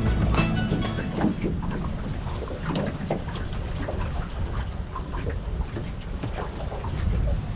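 Background music ends about a second and a half in. After that, wind buffets the microphone over a low rumble, with scattered small splashes and knocks.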